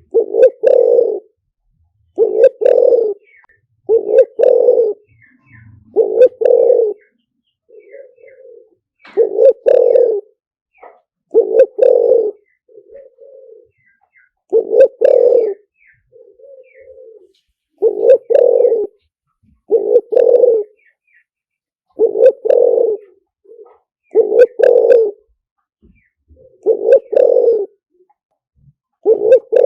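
Spotted dove cooing over and over: loud coos about every two seconds, with softer notes between them. This is the decoy call used to lure wild spotted doves.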